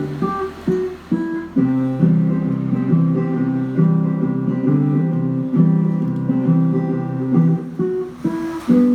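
Guitar music: plucked notes and chords, changing every second or so.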